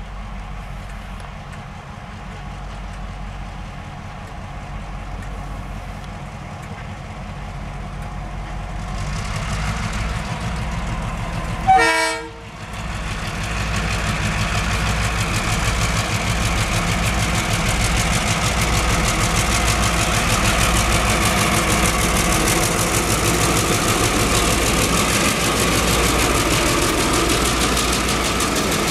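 Two TasRail DQ class diesel locomotives hauling an empty ballast train: a low engine rumble that grows as they approach, and a brief horn toot about twelve seconds in. After the toot the engines and the wagons on the rails are loud as the train passes close by.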